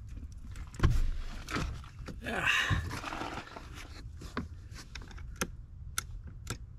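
Clicks and light rattles of alligator-clip jumper leads and wiring being handled against a power-seat frame's metal, with a knock about a second in and a brief rushing noise around two and a half seconds, over a low steady hum.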